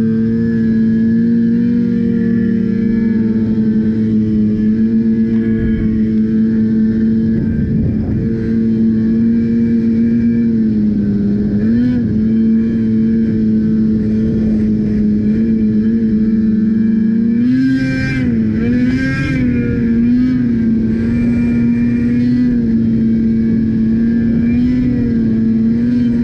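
Race snowmobile's engine running hard and steady as the sled travels across snow. Its note dips and wavers briefly about halfway through, and again about two-thirds in, where two short bursts of hiss join it.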